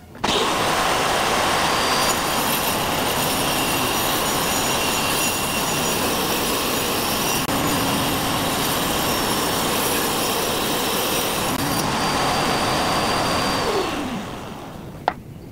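Angle grinder fitted with a toothed circular saw blade and mounted under a table as a makeshift table saw, switched on just after the start and running steadily with a high whine while it cuts strips of acrylic. Near the end it is switched off and spins down with a falling whine, followed by a single sharp click.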